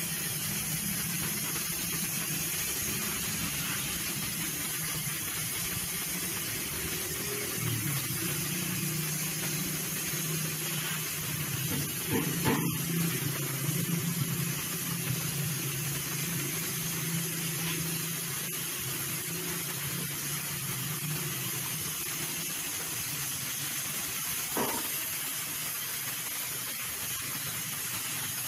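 Compressed-air spray gun hissing steadily as it sprays clear matte melamine lacquer, over the steady hum of the air compressor feeding it. A short knock about halfway through.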